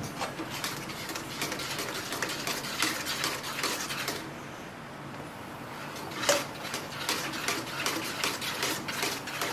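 Metal spatula scraping and clicking against the bottom of a metal frying pan, stirring thick, porridge-like sauce in quick strokes, several a second. The stirring drops off for about two seconds in the middle, then resumes with one louder knock against the pan.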